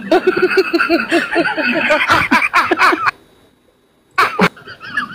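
A person laughing in quick, evenly repeated bursts for about three seconds, stopping abruptly, followed by a short burst of voice about a second before the end.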